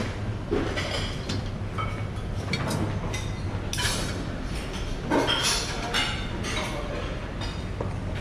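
Restaurant dining-room ambience: a steady low hum with scattered clinks of dishes and cutlery.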